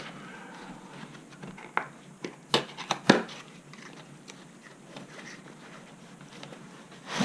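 A wrench set and its packaging being handled: rustling with scattered sharp clicks, the loudest few coming close together about two and a half to three seconds in.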